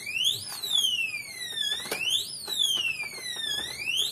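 FU88G electronic safe's warning alarm sounding after three failed fingerprint attempts: a siren tone that sweeps quickly up and then slides back down, repeating about every two seconds. A few faint clicks come through it.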